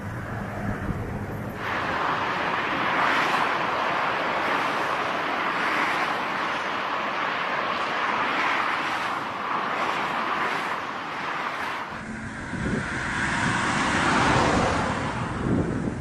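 Steady rushing noise of strong wind buffeting the microphone, with abrupt changes about two seconds in and again near twelve seconds.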